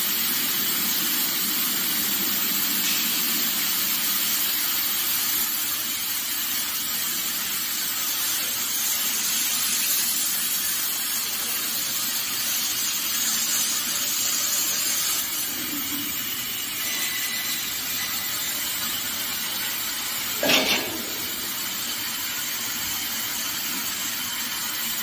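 Bodor laser tube cutting machine bevel-cutting a square steel tube: a steady hiss from the cutting head's gas jet and the cut, over a faint machine hum. A single sharp knock comes about twenty seconds in.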